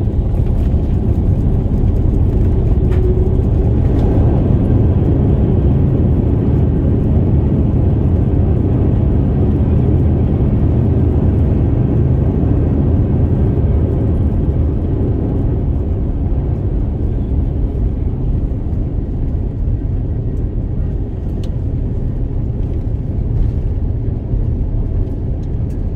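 Loud low rumble inside the cabin of an Airbus A350-900 rolling on the runway after landing, with engine and wheel noise together. It eases slowly over the second half as the aircraft slows.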